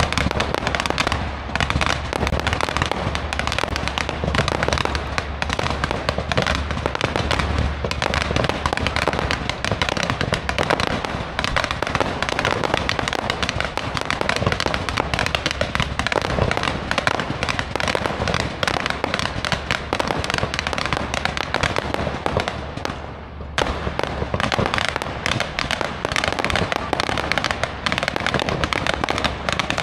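Aerial fireworks going off in a rapid, dense barrage of bangs and crackle with hardly a gap between shots, briefly dropping away about three quarters of the way through.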